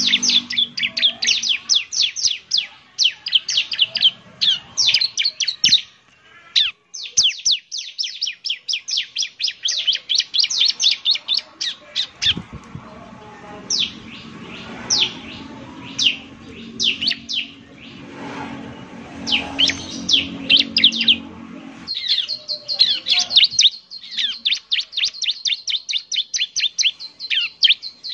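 Bar-winged prinia (ciblek) singing in fast runs of sharp, downward-sweeping chirps, several notes a second, broken by short pauses. A low hum sits under the middle of the song, and a thin steady high whistle runs beneath the chirps near the end.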